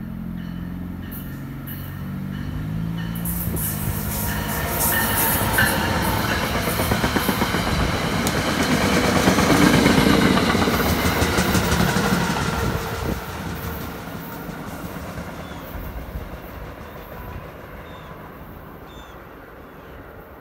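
NJ Transit test train hauled by ALP-45DP and ALP-46A locomotives passing by on electrified track. It approaches with a low drone, grows loudest about halfway through as the wheels clatter rapidly over the rails, then fades as it draws away.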